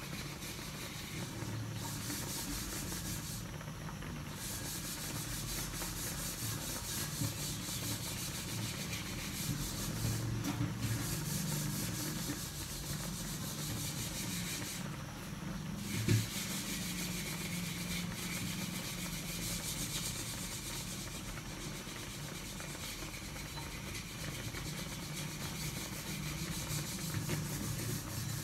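Tocino (sweet-cured pork) simmering in water in an aluminium wok: a steady bubbling hiss as the water is boiled off to tenderise the meat. There is one brief knock about 16 seconds in.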